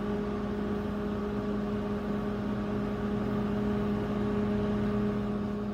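Panasonic Genius microwave oven running mid-cycle: a steady, unbroken hum.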